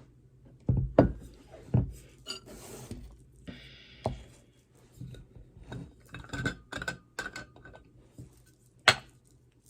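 Household objects being handled during cleaning: an irregular series of knocks and clinks, with a sharp knock near the end.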